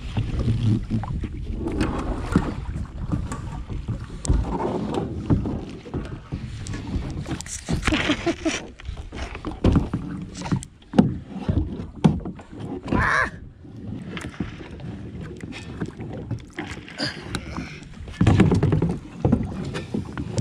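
Kayak paddling: paddle blades dipping and splashing in the water, with irregular knocks and clunks.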